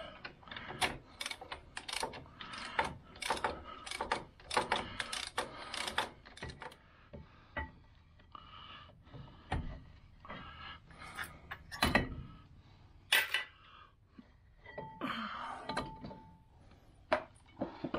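Hand ratchet clicking in quick strokes as the brake caliper bolts are backed out, followed by a few separate metallic clunks and knocks as the caliper is worked loose and lifted off.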